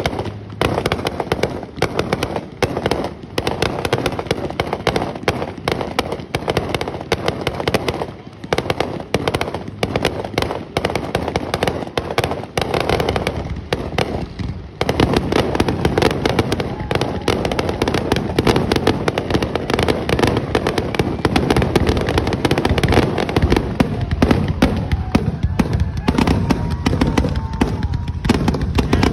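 Aerial fireworks display: a rapid, continuous barrage of bangs and crackles from shells bursting overhead, growing denser and louder about halfway through.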